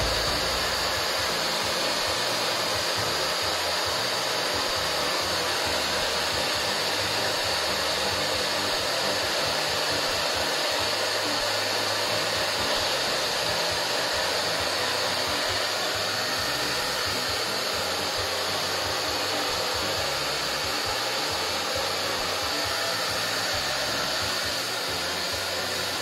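Handheld hair dryer running steadily on full blow, an even rush of air with a steady high hiss. Its fan has been cleaned of oily dust and hair strands and now turns freely, with no more of the noise it made before the cleaning.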